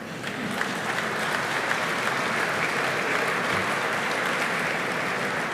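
Audience applauding. The clapping swells up within the first second and then holds steady.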